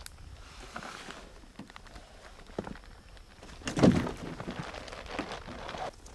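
Camping gear being handled and loaded into a canoe: rustling of packs and straps and scattered small knocks and footsteps on rocky ground, with one louder thump about four seconds in as a bag is set down in the canoe.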